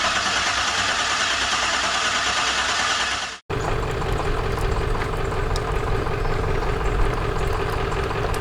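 Engine sounds in two spliced clips. First a dense, hissy engine noise that cuts off abruptly about three and a half seconds in, then an engine running steadily with a low rumble.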